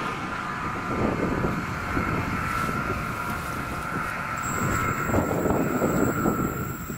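A passenger train heard receding after it has gone past, a steady whine over low rumble that fades away near the end, with wind buffeting the microphone.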